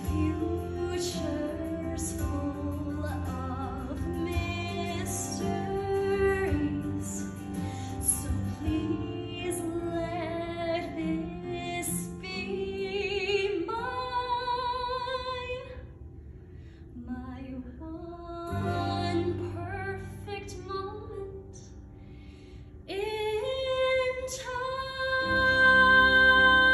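A young woman singing a musical-theatre song solo over instrumental accompaniment, holding a long note with vibrato about halfway through. The singing turns quieter for a stretch, then builds to loud sustained notes near the end.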